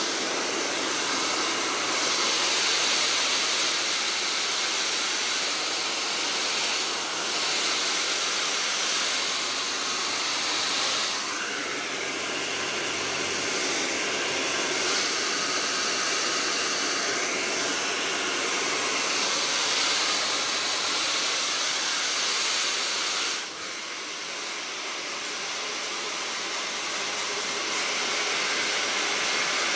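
Handheld hair dryer blowing steadily, its rush of air growing louder and softer as it is swept over the hair. The sound drops suddenly for a moment about three-quarters of the way through.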